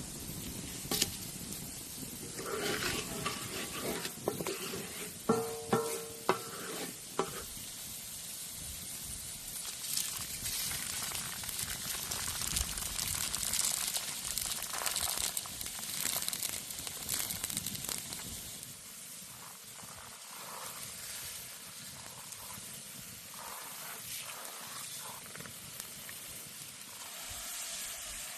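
Food sizzling in a pan over an open fire, with several sharp knocks in the first seven seconds; the sizzle gets quieter after about eighteen seconds.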